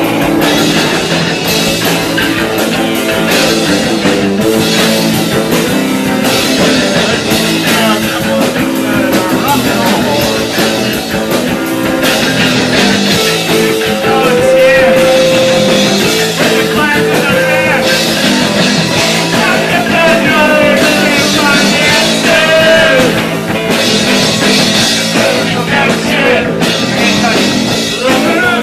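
Punk rock band playing live and loud: distorted electric guitars over bass and a drum kit.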